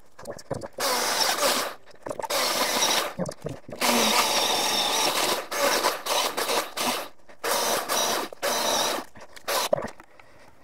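Milwaukee M18 battery chainsaw running on a 9Ah battery, its electric motor and chain going in repeated bursts of one to two seconds with short stops between. The saw falls quiet near the end as the battery, already flat, overheats and cuts out.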